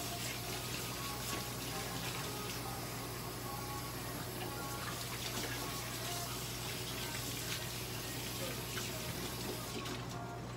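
A steady rushing hiss, much like running water, over a constant low electrical hum. The hiss drops away suddenly near the end.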